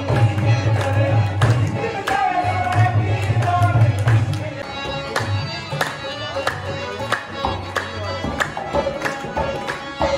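Live devotional music: a hand drum and a harmonium, with the gathering clapping along in a steady rhythm.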